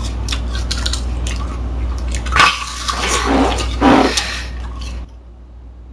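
Crunching and wet chewing of an apple close to the microphone, a dense run of crisp clicks, with a louder burst about two and a half seconds in and a couple of short vocal noises just after.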